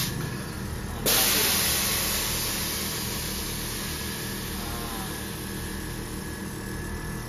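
Air suspension valves hissing as air rushes through them, the hiss starting suddenly about a second in and tapering off over the next few seconds, over a steady low hum.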